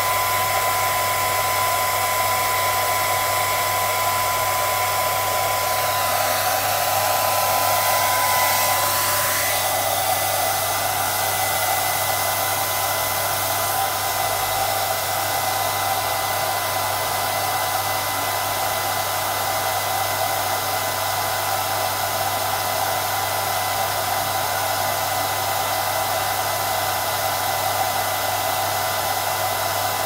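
Handheld hair dryer running steadily: a constant rush of air with a high whine. Its tone shifts slightly around eight or nine seconds in.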